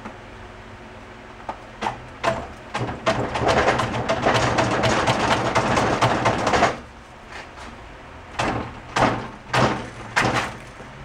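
Clicks and knocks of hand tools working a seized 1971 Honda CB350 engine back and forth to free it. A few clicks come first, then several seconds of rapid clicking and rattling, then four separate knocks near the end.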